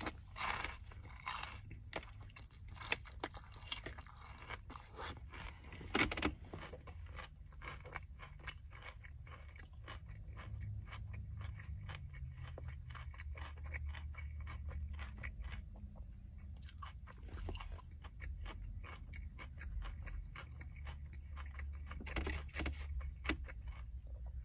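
Close-up chewing of a wrap of crispy breaded fried chicken tender and coleslaw in a soft tortilla, the breading crunching between the teeth. The loudest crunches come in the first several seconds, then it settles into steady, softer chewing.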